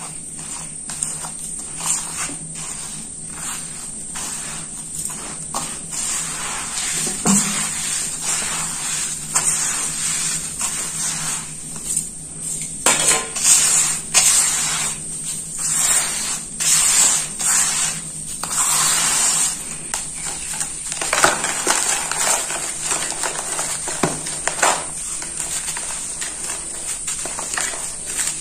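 Hands scooping, squeezing and crumbling dry sandy powder in a metal bowl, a gritty rustling and hissing as the grains pour and scrape against the metal. The strokes come irregularly, louder and busier around the middle.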